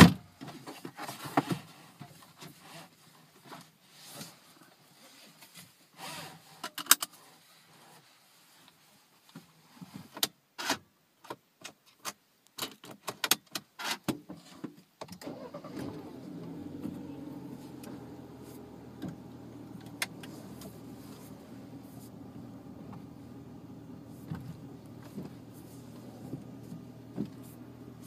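Scattered clicks and knocks of things being handled in a Mini Cooper's cabin. About halfway through, the car's engine starts and settles into a steady idle, heard from inside the cabin.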